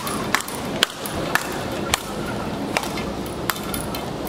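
Speedball rackets striking the ball tethered to the central pole in a fast rally: about seven sharp cracks, roughly one every half second.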